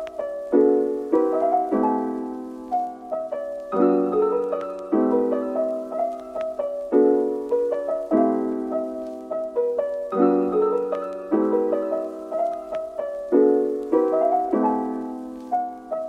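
Background piano music: a repeating phrase of chords struck in pairs about every three seconds, with a melody above.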